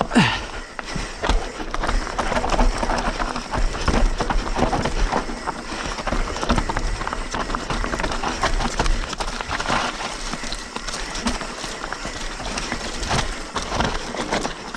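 Bird Zero AM hardtail mountain bike descending a dry, dusty, rocky trail: a steady rush of tyres on loose dirt with dense, irregular knocks and rattles from the bike over roots and rocks.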